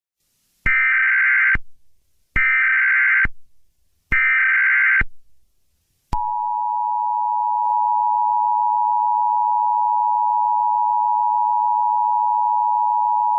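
Emergency Alert System alert tones: three one-second bursts of SAME header data, each a rapid buzzy warble, then from about six seconds in a steady, unbroken attention tone just under 1 kHz.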